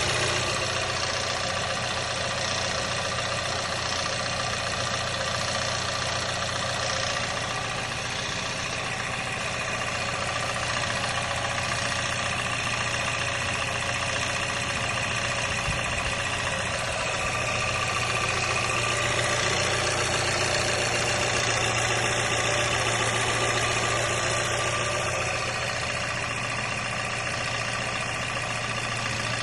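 Toyota Camry XV70's 2.5-litre four-cylinder engine idling steadily from a cold start, carrying an extra noise over the normal idle that put a prospective buyer off the car.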